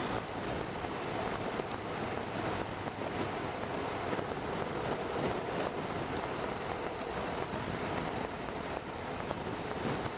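Steady rush of wind and tyre hiss on wet tarmac from a motorcycle riding at road speed on a blustery day.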